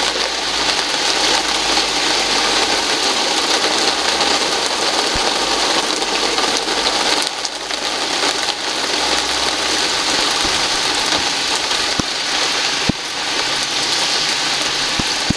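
Steady rain falling, an even hiss, with now and then a single sharp tap of a drop striking something close by.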